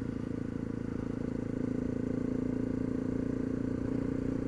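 Honda CRF250L's single-cylinder four-stroke engine running at a steady, even pitch while the bike is ridden along the road.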